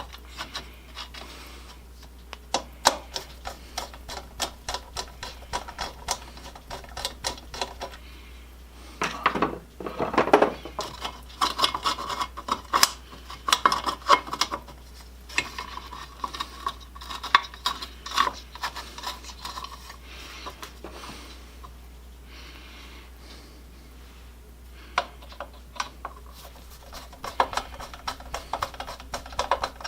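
Small metal parts clinking, tapping and scraping in irregular bursts as chainsaw parts are handled and fitted, with a quieter spell about two-thirds of the way through. A steady low hum runs underneath.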